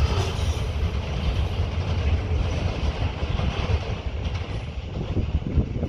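A train passing close by, a steady heavy rumble that slowly fades toward the end.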